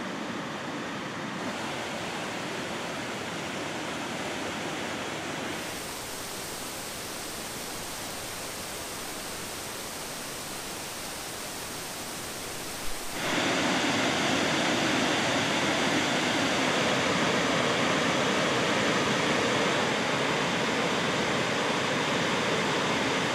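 White water rushing steadily over river cascades and a waterfall. The sound shifts a few times and grows louder about halfway through.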